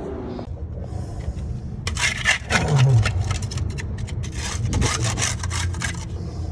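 Hand scraper scraping dried pigeon droppings off a building ledge, in rapid, irregular strokes that start about two seconds in, as the ledge is cleaned before bird spikes go on.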